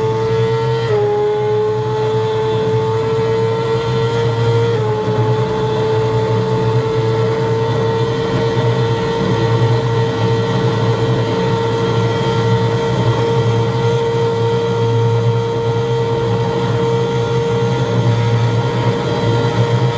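BMW HP4's inline-four engine running at high revs in a flat-out top-speed run, under heavy wind rush. It shifts up twice, about a second in and again near five seconds, each time with a small drop in pitch, then pulls steadily as the pitch slowly rises.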